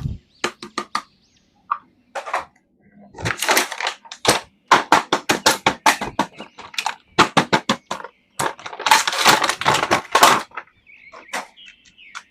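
Plastic toy packaging and an action figure being handled and opened: irregular crinkling and sharp clicks in quick clusters, with short pauses between them.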